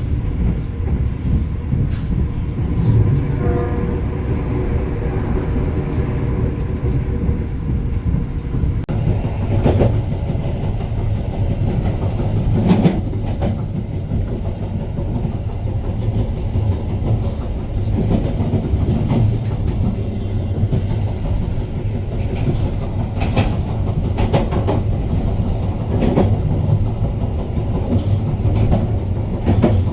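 Argo Bromo Anggrek express train running on the track, heard from on board: a steady low rumble with wheels knocking over rail joints every few seconds.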